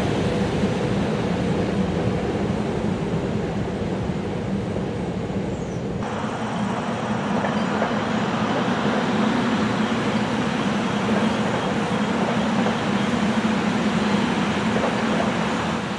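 SEPTA commuter trains running past on electrified track: a steady rumble of wheels on rail. About six seconds in the sound changes abruptly to a second train rolling by, with a steady low hum under the rail noise.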